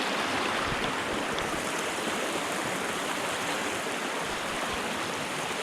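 Shallow mountain creek rushing steadily over rocks.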